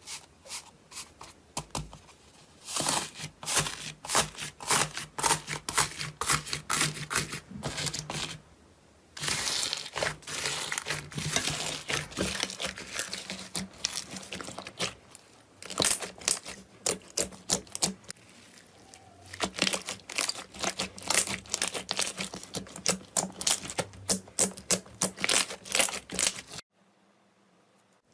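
Slime being squished and pressed by hand: a dense run of sticky crackles and pops, with a brief pause about eight and a half seconds in, cutting off abruptly near the end.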